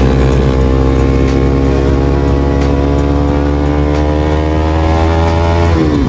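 Motorcycle engine under way, its pitch climbing steadily as it accelerates, then dropping suddenly near the end.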